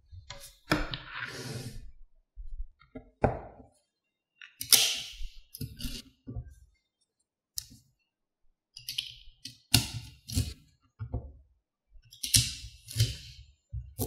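Small magnetic balls clicking, snapping and rattling against each other as hands pull them apart and slide them around, in irregular bursts with soft low thumps.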